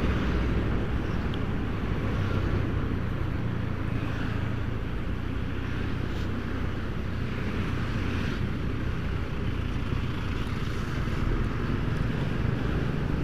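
Steady running noise of a motorcycle ride through town traffic: engine hum and wind on the microphone, with passing vehicles, holding at an even level.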